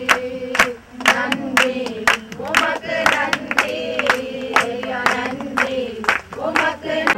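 A group of people singing together, clapping their hands in time at a little over two claps a second.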